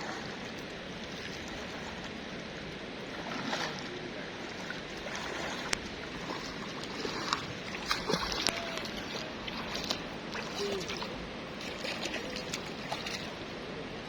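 Steady rushing of river water, with scattered short splashes and sharp clicks, busiest in the middle.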